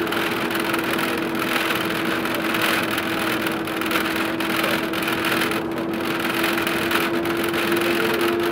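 Ikarus 280 articulated bus driving at steady speed, heard from inside the cabin: diesel engine and driveline running with a steady whine, under a hiss of road and wind noise that swells and fades every second or so.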